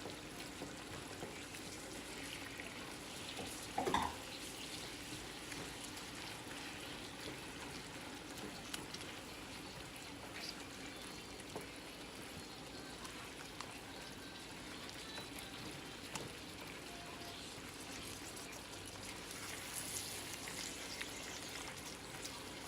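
Ground beef sizzling steadily as it browns in a pot, with scattered light clicks of the stirring utensil and one brief louder sound about four seconds in.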